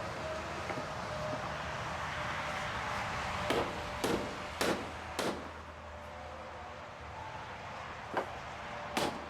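Hammer driving nails: four sharp blows about half a second apart a few seconds in, then a few more near the end, over a steady background hiss.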